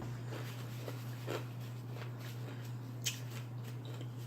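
Faint chewing and mouth sounds of a person eating, over a steady low hum, with a sharp click about three seconds in.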